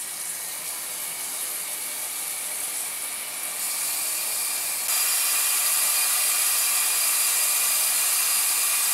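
Water running from a kitchen tap into a stainless steel saucepan as it fills, a steady hiss that steps up louder twice midway.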